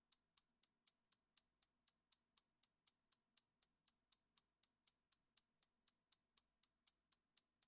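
Ticking-clock countdown sound effect: faint, sharp, high-pitched ticks at an even pace of about four a second, timing the pause for answering a quiz question.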